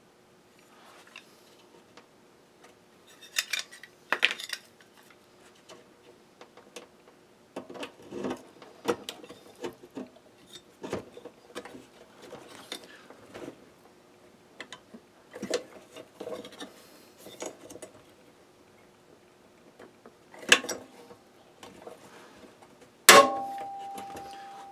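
A hand pop-rivet tool being worked on a dryer drum glide in its sheet-metal bulkhead: repeated clicks and metallic clinks as the tool is fitted and squeezed. Near the end comes one sharp, loud snap, typical of a rivet mandrel breaking off as the rivet sets, followed by a brief metallic ringing.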